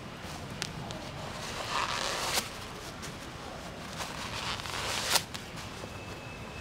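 Rustling and scuffing from a pair of red high-top sneakers being handled and set down on asphalt: two short swelling rustles, each ending in a sharp click, and a few light ticks over a steady outdoor hiss.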